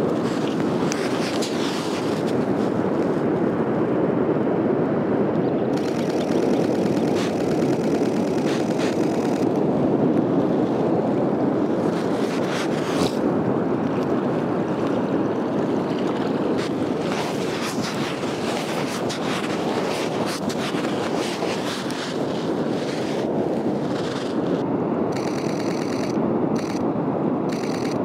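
Steady wind noise on the microphone mixed with the wash of breaking surf, an even rushing without any distinct events.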